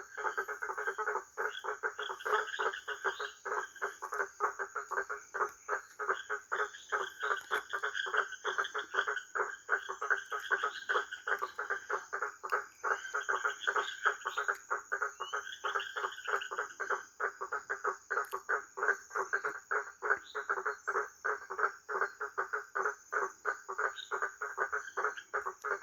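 A chorus of frogs calling in a dense, rapid run of pulsing croaks. Shorter, higher trills come in now and then, over a thin steady high tone.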